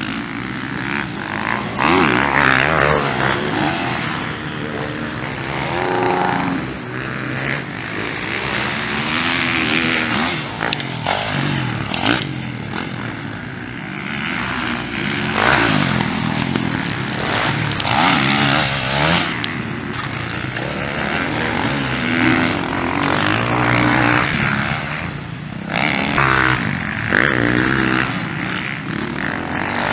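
Motocross dirt bike engines revving hard, pitch climbing and falling over and over as they accelerate, shift and back off through the turns, with the sound changing abruptly several times.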